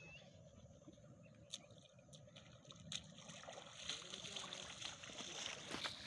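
A person wading through shallow water among reeds, with soft splashing and sloshing that grows louder in the second half.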